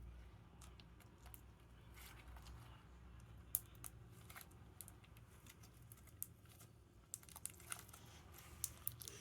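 Faint, scattered small clicks and crackles of homemade slime being kneaded and pressed to work the air bubbles out, with one sharper click about three and a half seconds in and a quick run of clicks near the end.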